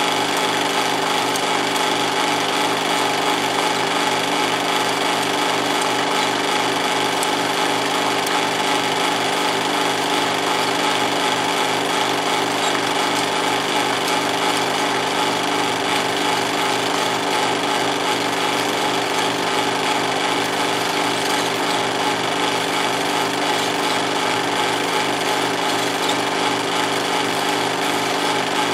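16mm film projector running steadily: a rapid, even mechanical clatter of the film drive over the steady hum of its motor.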